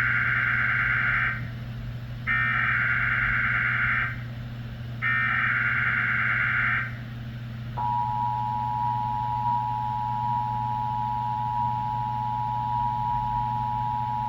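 Emergency Alert System test tones: three bursts of the SAME digital header, a harsh buzzy data screech each lasting nearly two seconds. Then, about halfway through, the steady two-tone EAS attention signal begins and holds. A low steady hum runs underneath.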